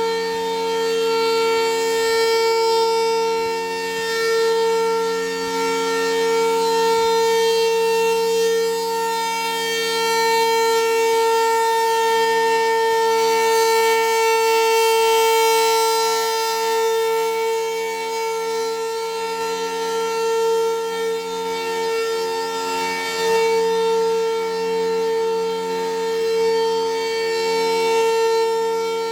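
Federal Thunderbolt 1000 supercharged outdoor warning siren sounding its steady alert tone, one held pitch with no rise or fall. The sound swells and fades every several seconds as the siren head rotates.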